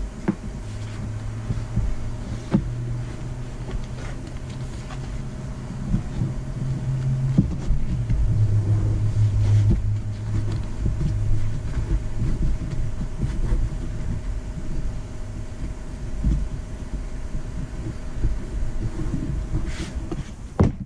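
Black vinyl upholstery being handled and pulled over a kick panel board: rustling and crinkling with scattered clicks over a low rumble. A steady low hum runs under it, drops slightly in pitch, and stops about halfway through.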